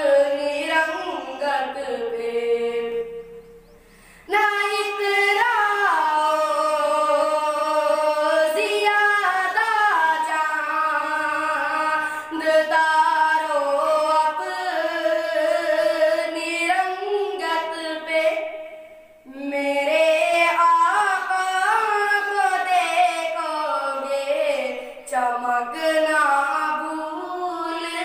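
A boy singing an Urdu nazm, a devotional poem, solo with no instruments, in a high melodic voice. He breaks off briefly about four seconds in and again near nineteen seconds.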